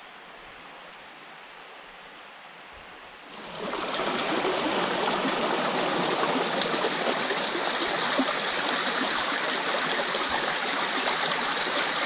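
Small forest stream running and splashing down a rocky channel, a steady rush of water. A fainter steady hiss gives way suddenly about three and a half seconds in to the full, much louder sound of the stream close by.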